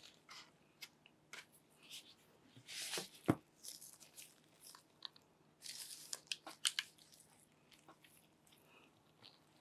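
Close handling noises: scattered rustles and short clicks and taps, with a louder rustle and a sharp knock about three seconds in and a quick run of clicks around the middle.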